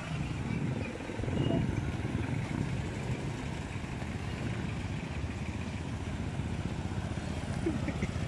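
Street traffic: motorcycles and motorized tricycles running along the road, heard as a steady low rumble.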